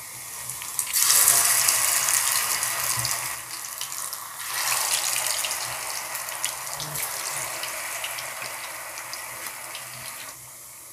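Batter-coated paneer cubes deep-frying in hot oil: a loud sizzling hiss with crackles that surges as pieces go in, about a second in and again at about four and a half seconds, then settles to a steadier bubbling sizzle that eases off near the end.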